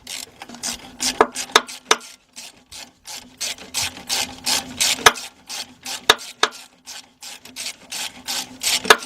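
3/8-drive ratchet clicking in quick, uneven strokes as it backs out a 13 mm starter mounting bolt, with a faint steady hum underneath.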